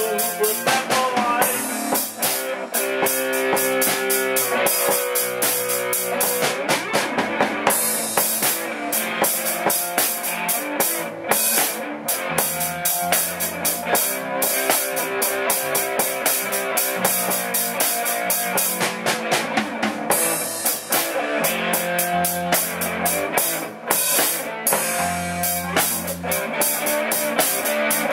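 Live band playing a slow blues-rock instrumental passage with no vocals: electric guitar over bass guitar and a drum kit, with steady cymbal and drum hits.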